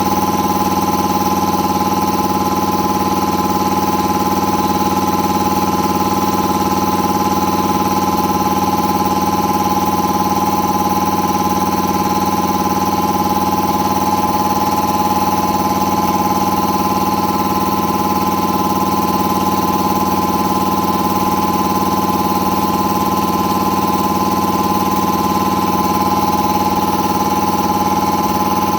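Air compressor with a newly installed pump unit running steadily with an even drone, pumping up the tank toward the pressure switch's cut-out at about 145 to 150 psi.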